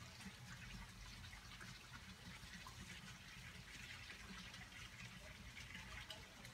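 Near silence: faint background hiss with a few tiny ticks.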